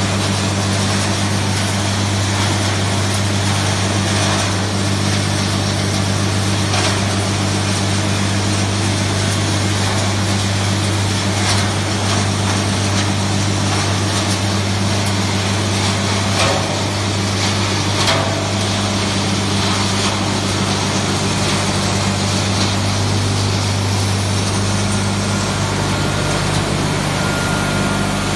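Circuit board crushing and recycling machine running: a loud, steady low hum under a broad rushing noise, with a few sharp knocks in the middle. A thin high tone comes in near the end.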